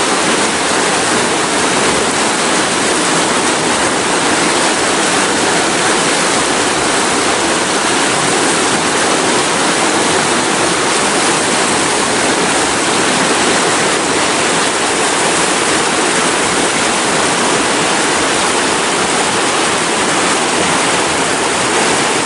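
A fast, turbulent river rushing and churning over a stone bank: a loud, steady rush of water.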